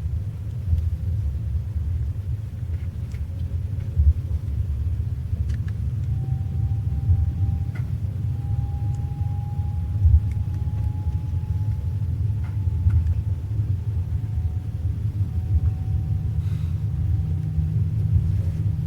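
Passenger train carriage running along the track, heard from inside: a steady low rumble with a couple of short knocks, and a faint steady high whine through the second half.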